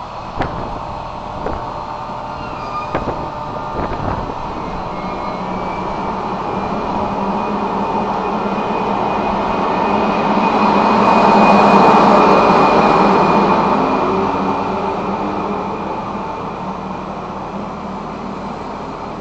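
NS class 1700 electric locomotive pulling away with a train of double-deck coaches. A few sharp knocks come in the first four seconds, and steady high whines run throughout. The running noise swells to a peak as the locomotive passes, about twelve seconds in, then fades as the coaches roll by.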